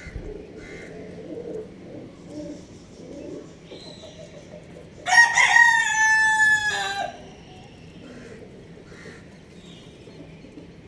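A rooster crows once, a loud call of about two seconds that starts about five seconds in and drops in pitch at its end. Before it, softer low clucking.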